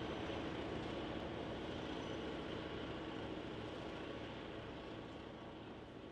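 HO scale model train running along the track, a steady rumble of wheels on rail that gradually fades toward the end.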